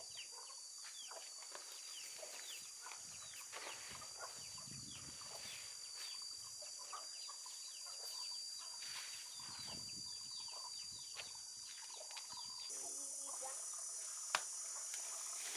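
Chickens calling, many short falling chirps, over a steady high insect buzz. A single sharp click about fourteen seconds in.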